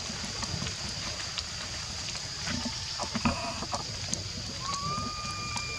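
Steady high drone of insects over low rumbling outdoor noise. There are a few soft clicks around the middle, and near the end comes one whistled call about a second long that rises briefly, then holds level.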